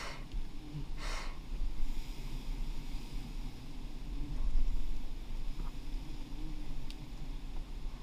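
Low, uneven rumble of wind and handling noise on the microphone, with a short rushing swish about a second in.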